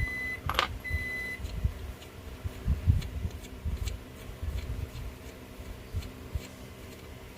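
Two short, steady, high-pitched electronic beeps in the first second and a half, followed by scattered light knocks and clicks as metal molds and their screws and fasteners are handled.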